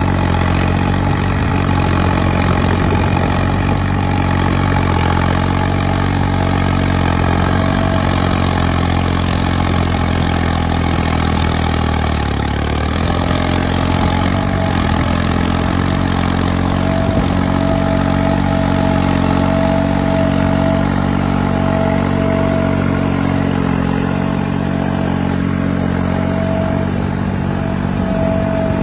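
New Holland 3630 tractor's diesel engine running steadily while pulling a cultivator through tilled soil. About halfway through, its pitch dips briefly and recovers. In the second half a thin, high, steady whine comes and goes over it.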